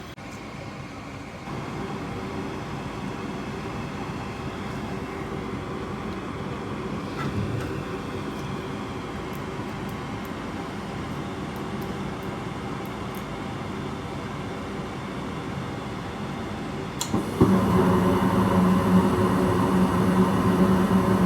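Gas furnace starting a heating cycle with its newly replaced rollout switch. The inducer motor comes up to a steady run, then about 17 seconds in there is a click and the circulating blower kicks on with a louder, steady hum.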